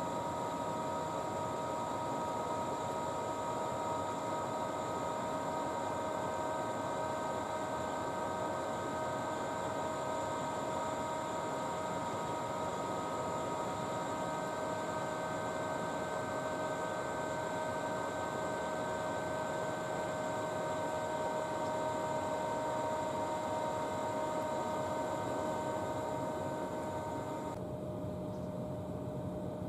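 Parked electric trains' onboard electrical equipment giving a steady hum with several high whining tones over a hiss. Near the end the higher whines stop and a lower hum remains.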